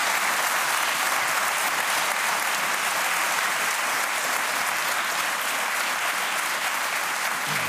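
Studio audience applauding: many hands clapping in a dense, steady wash.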